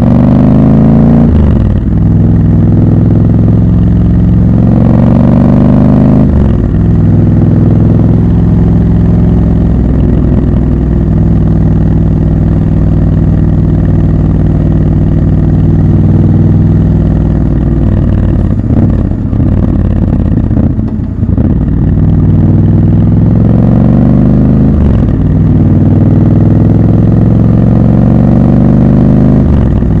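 Triumph Scrambler 1200 XC's 1200 cc parallel-twin engine accelerating hard through the gears. Its pitch rises and drops sharply at each upshift several times in the first few seconds, then it holds a steady cruise. About two-thirds of the way through, the throttle is eased off and the note falters before pulling up through another shift.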